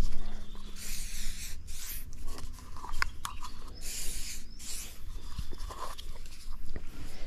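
Aerosol insect repellent sprayed onto skin in several short hissing bursts.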